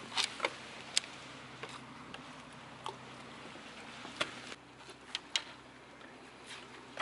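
Scattered light clicks and taps from a fishing rod and baitcasting reel being handled, about eight sharp ticks at irregular intervals over a low steady background.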